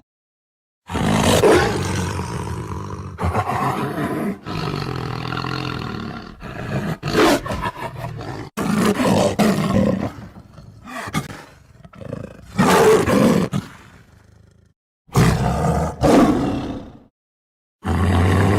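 Tiger roars and growls from a sound-effect compilation: a string of separate clips, each starting and stopping abruptly, with short gaps of dead silence between some of them.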